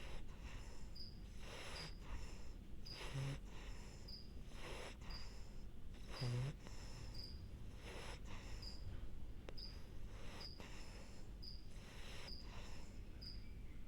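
French bulldog breathing noisily in its sleep, one breath about every second and a half, with a short buzzing snore about three seconds in and a louder one about six seconds in. A faint high chirp repeats about every two-thirds of a second.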